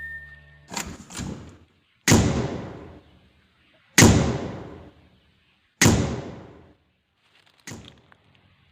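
A series of sudden sharp bangs: two lighter knocks, then four loud bangs about two seconds apart, each fading out over about a second, and a smaller one near the end.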